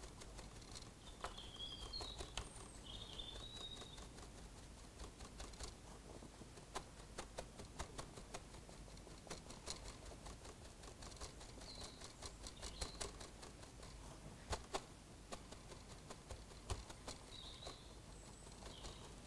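Faint, irregular tapping and patting as a small sponge is dabbed over a model diesel locomotive's body shell to weather it. A few brief high chirps are heard now and then.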